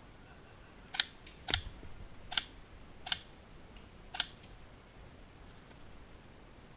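Five sharp snapping clicks at irregular intervals of half a second to a second, then only a faint hiss.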